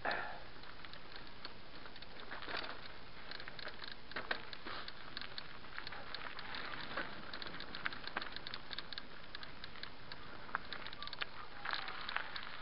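Mountain bike tyres rolling fast over a dry, stony dirt trail: a steady gravelly noise with many small clicks and rattles from loose stones and the bike.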